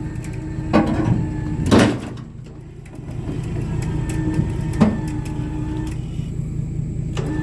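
Engine running steadily while a winch pulls in two stretches with a steady whine, and sharp metal clunks sound four times as the chain and winch line take up the load.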